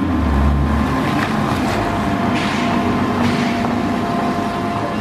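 Nissan GT-R R35's twin-turbo V6 pulling away at low speed on a wet road, with a deep exhaust rumble that is strongest in the first second, under a steady hiss of tyres on wet pavement.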